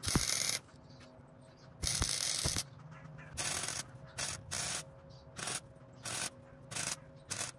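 Electric welder laying a run of short tack welds: about nine bursts of crackling hiss, the first two longer and the rest short, with pauses between.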